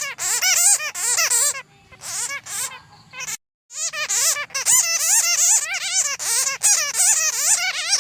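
Bats chattering: a dense run of rapid, squeaky chirps, each rising and falling in pitch. The calls thin out and break off for a moment just before the middle, then come back thick and fast.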